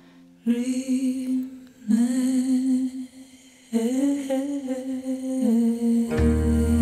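A singer's wordless humming in three drawn-out phrases with short gaps between them. Near the end a deep bass note and plucked acoustic guitar come in.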